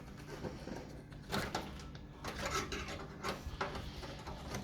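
Graphics card being fitted into a PC case: a few scattered plastic and metal clicks and knocks as the card's bracket and connector are worked into the slot, over a low steady hum.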